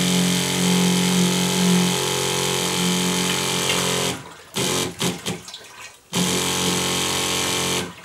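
Small electric water pump running with a steady buzzing hum as it draws water through to fill a heating loop. It cuts out about four seconds in, gives a couple of short bursts, then runs again for about two seconds and stops near the end.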